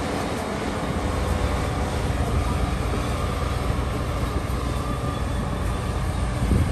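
Shantui bulldozer's diesel engine running steadily with a low rumble.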